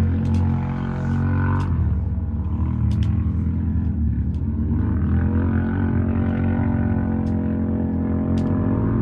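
An engine running steadily, its pitch drifting slightly, with a few brief light clicks.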